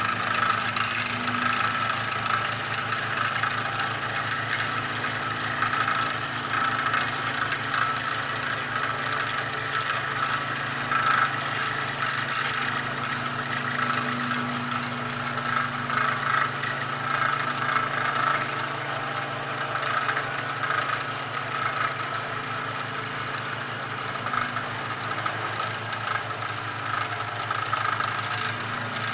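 Vibro sinker (vibratory pile hammer) driving a Z-type steel sheet pile: a steady mechanical drone and rattle of the vibrating steel, running without a break.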